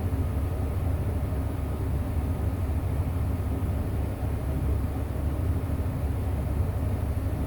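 Cat 349F excavator's diesel engine running steadily, a constant low rumble.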